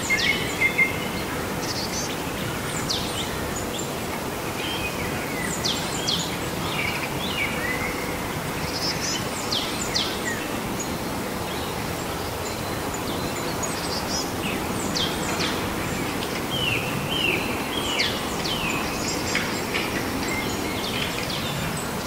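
Birds chirping, with many short, quick calls, over a steady hiss of outdoor background noise.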